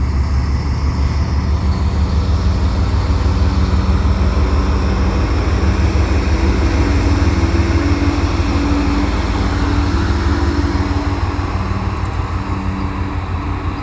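A CPKC GE ET44AC locomotive, the rear distributed-power unit of a freight train, passing close with its V12 diesel running over a steady heavy rumble of wheels on rail. Several steady engine tones hold and shift through it.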